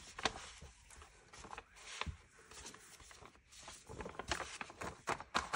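Sheet of paper being handled and laid onto a tub of foamed orange ink bubbles: scattered soft rustles, taps and little crackles at irregular moments.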